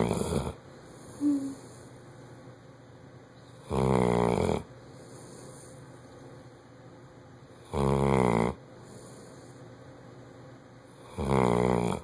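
Bloodhound snoring loudly in its sleep: one snore about every four seconds, each lasting under a second.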